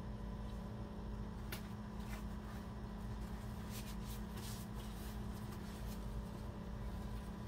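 Steady low background hum, with a few light clicks and rustles of gloved hands setting a plastic syringe down on a paper towel.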